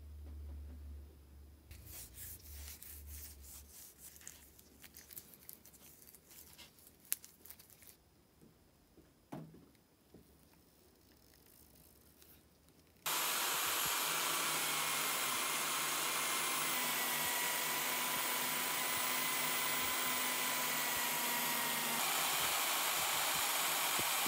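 Drill press spinning a wire wheel brush: a steady motor whir with a faint whine that starts suddenly about halfway through. Before it, only faint clicks and rubbing from handling the wrench.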